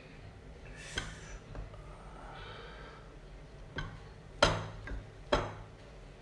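Bare hands working cooked rice and fried fish on a ceramic plate, with a few sharp clicks about two-thirds through, the loudest of them near the middle. A short sniff about a second in.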